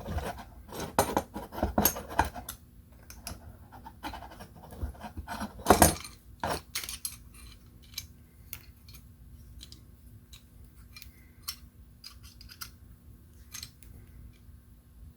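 Small parts of a camera mount handled and screwed together by hand: a run of scrapes and clicks in the first few seconds, one loud knock about six seconds in, then scattered light clicks.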